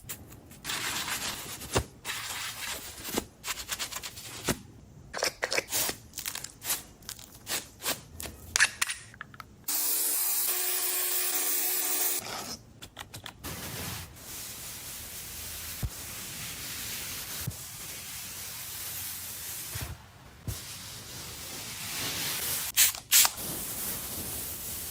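Grooming sounds on a dog: a string of short rubbing and scraping strokes, then about ten seconds in a spray hissing for about two seconds, followed by a steady hiss with a few soft clicks.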